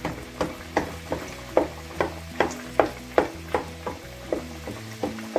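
Pastries deep-frying in hot oil, sizzling, under background music with a steady beat of sharp strikes about two and a half a second.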